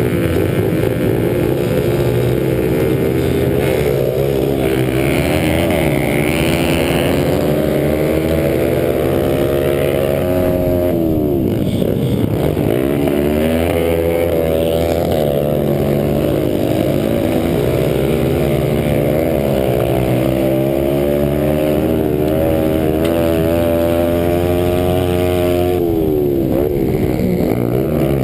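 Small pit bike engines running hard and close up. The pitch climbs and drops again and again with throttle and gear changes as the bikes race on a dirt track.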